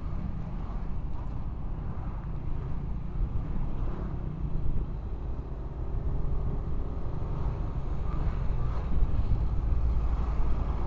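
Riding a Yamaha automatic scooter on a road: steady wind and road rumble on the rider's microphone over the scooter's engine, as it speeds up a little in traffic.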